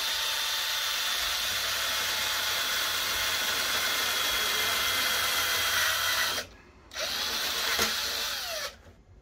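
Cordless drill running under load, boring a hole through a fiberglass rocket airframe into a fin's fillet. It runs steadily with a high whine for about six seconds, stops briefly, runs again for nearly two seconds, then stops near the end.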